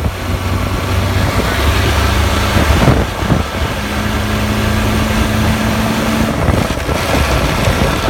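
Vehicle driving at highway speed with steady road and drivetrain noise and a low hum, joined about four seconds in by a steady tone that stops a little after six seconds. This is the drivetrain noise the owner gets when coasting in neutral above 50 mph, which he says is not the throwout bearing.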